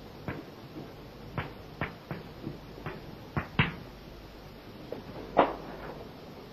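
Chalk tapping and striking on a blackboard as symbols are written: a string of irregular short taps, the loudest about five and a half seconds in.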